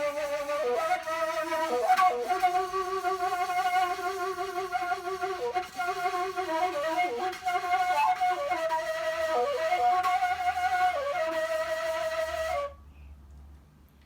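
Kaval, a Turkish end-blown wooden flute, played solo in a freely improvised melody with quick ornamental turns between held notes. The phrase ends about twelve and a half seconds in and is followed by a brief pause.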